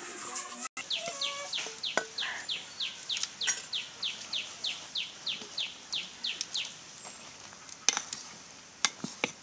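A bird calling a long, even series of short notes, each falling in pitch, about three a second for some five seconds. Near the end come a few sharp clicks.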